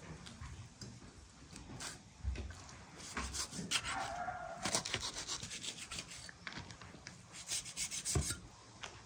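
Large kitchen knife cutting and scraping raw beef away from a leg bone on a wooden board: irregular rasping strokes, with a brief squeak near the middle.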